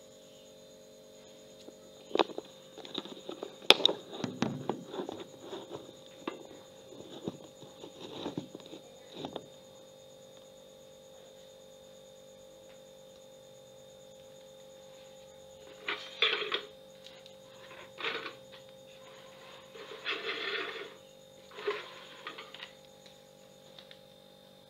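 Plastic buckets being handled while straining fermented rice: a cluster of knocks and clatter in the first half, then several short rustling bursts near the end, over a steady electrical hum.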